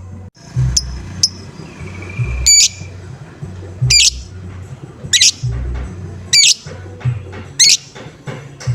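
Lovebird giving short, harsh 'ngoek' calls, about one every second and a quarter, over a low thumping beat.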